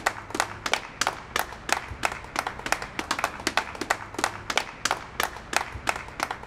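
A few people clapping unevenly: separate sharp claps, several a second, in an irregular rhythm.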